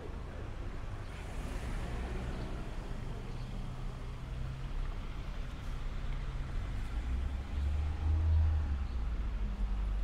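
Cars on a town street: a low, steady engine hum with traffic noise, and a deeper engine rumble that swells about eight seconds in as a vehicle passes.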